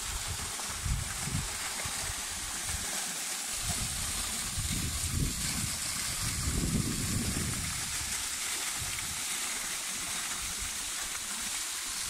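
Small waterfall and its stream: a steady rushing hiss of water falling and splashing into a pool, with irregular low rumbles mixed in, strongest in the middle.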